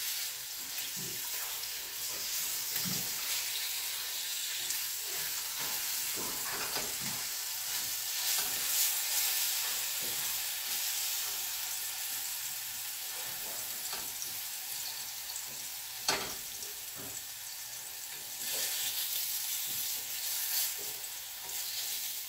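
Chicken pieces sizzling in hot oil in a stainless steel skillet, a steady frying hiss, with a spatula scraping and knocking against the pan now and then, most sharply about 16 seconds in. The chicken is being reheated in leftover oil to crisp it.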